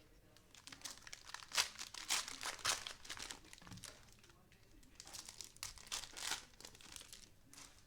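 Plastic cello-pack wrapper of a Panini Mosaic football card pack being torn open and crinkled, in two bouts of sharp crackling.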